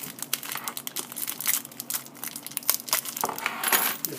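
Plastic wrapper of a Bakugan dog tag pack being crinkled and torn open by hand, a rapid, irregular crackling.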